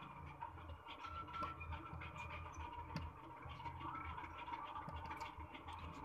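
Faint light clicks and scratching of a precision screwdriver and fingertips working at the screws and metal housing of an opened iPhone, over a low steady hum.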